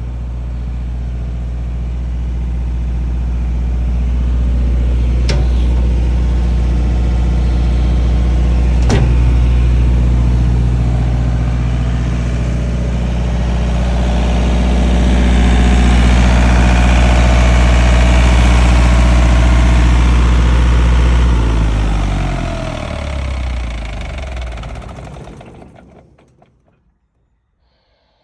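35 kW diesel generator engine running at a steady speed, with two sharp clicks in the first ten seconds. About 21 seconds in it is shut down: the engine note drops in pitch as it spins down and stops within about five seconds.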